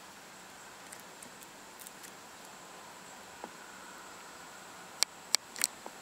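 Faint steady outdoor background hiss with a thin high whine, then four sharp clicks in quick succession about a second before the end.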